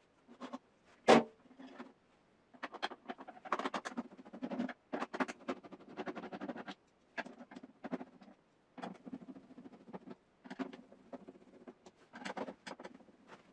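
Plastic parts of a dehumidifier being handled and taken apart: irregular clicks, taps and rattles in short clusters, with one sharp knock about a second in.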